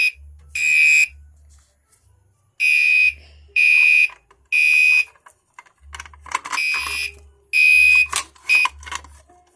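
Gentex Commander 3 fire alarm horn sounding temporal code 3 after a pull station is pulled: groups of three short, high-pitched blasts with a pause between each group. Near the end the third blast of the last group is cut short as the alarm stops, with a few clicks around it.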